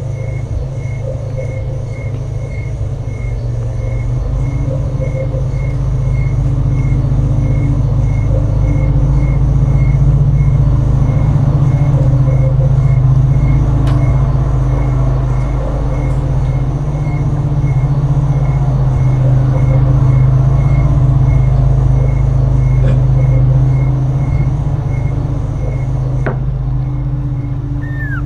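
Steady low mechanical hum, swelling and easing twice, with a faint regular tick about twice a second.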